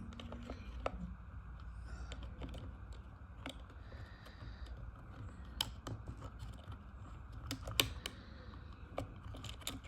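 Irregular light clicks and taps of small plastic and metal parts being handled as a chainsaw's throttle trigger and its spring are worked into the rear handle, with a sharper click about eight seconds in, over a low steady hum.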